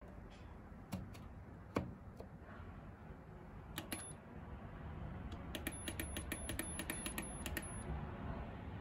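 Programme knob of a Gorenje washing machine clicking as it is turned, then short high beeps from the control panel as the spin-speed button is pressed, a couple at first and then a quick run of about a dozen, setting 1400 rpm.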